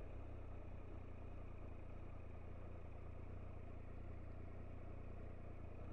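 Triumph Tiger 1200 XRT's three-cylinder engine running steadily at low revs as the bike rolls slowly: a faint, even low hum.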